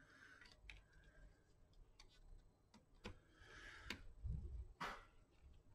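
Faint clicks and taps of small plastic and metal parts being handled inside an opened HP 250 G7 laptop as fingers work at the fan area, with a short scrape past the middle and the sharpest click near the end.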